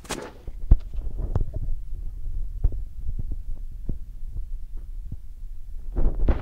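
Low rumbling on the microphone with irregular soft thumps throughout. A brief rustle comes at the start and another near the end.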